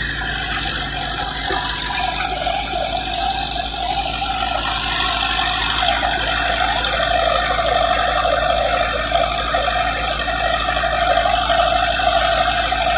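Harvester running steadily: a loud, even mechanical noise with a high hiss and a low hum.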